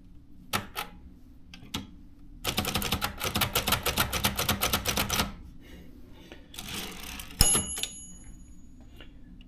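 Brother portable typewriter: a few single clicks, then a fast even run of typebar strikes, about ten a second, lasting about three seconds. Near the end the typewriter's margin bell dings once and rings out.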